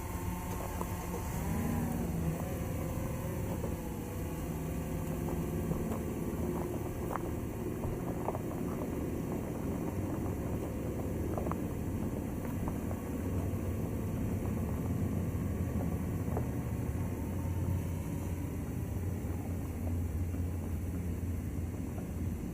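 Steady low engine rumble, with a brief wavering tone about a second in.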